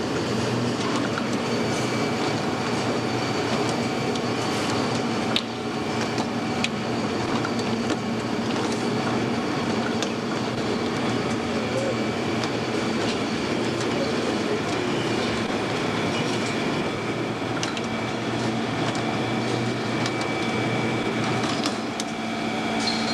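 Automatic PET bottle washing, filling and capping line running: a steady mechanical rattle with a low hum and scattered sharp clicks, one louder click about five seconds in.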